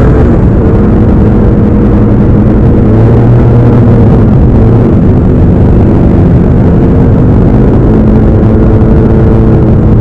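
Yamaha Aerox 155 scooter's single-cylinder engine running steadily at cruising speed, a loud drone with small rises and dips in pitch.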